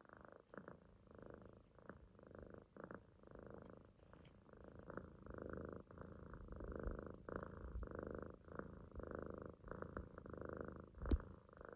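Munchkin kitten snoring in its sleep, a low rattling, purr-like sound that swells and fades with each breath in a steady rhythm. A single sharp bump sounds near the end.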